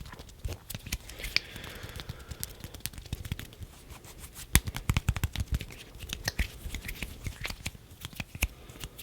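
Close-up hand sounds: fingers and palms moving and rubbing by the microphone, giving quick irregular clicks and soft rustles, busiest about five seconds in.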